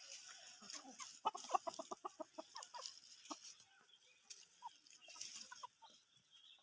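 Chicken clucking: a quick run of short clucks about a second in, then scattered single clucks.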